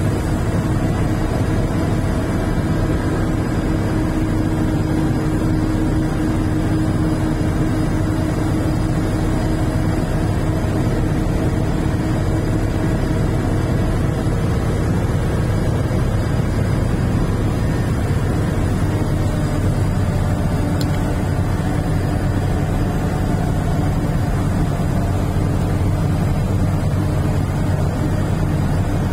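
Motor vehicle driving, heard from inside the cabin: a steady engine drone with road and tyre noise.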